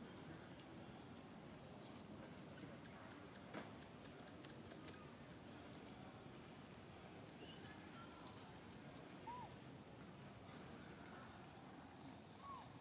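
Faint, steady high-pitched drone of insects, with two short chirps, one about nine seconds in and one near the end, and a faint tap a few seconds in.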